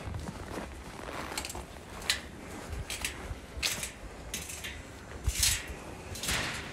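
Footsteps of a person walking at a steady pace, a short crunchy step roughly every three-quarters of a second.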